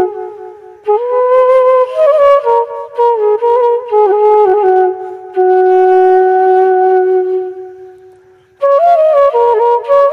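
Background music: a solo flute melody played in ornamented phrases, with a long held note that fades away past the middle before a new phrase begins near the end.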